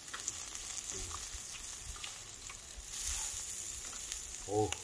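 Scallops, shellfish and meat sizzling steadily on a hot stone grilling slab, with a few light clicks as tongs turn the food.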